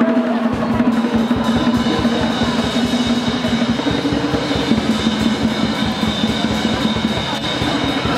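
Music with a fast, steady drumbeat and a long held note over it.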